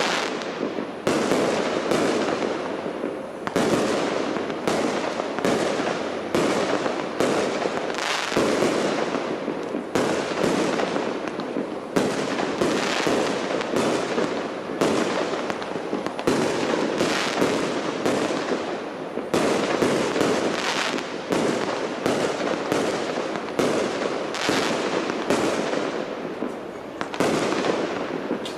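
Large display fireworks: aerial shells bursting in a continuous barrage, a loud bang roughly every half second to second, each trailing off in echo.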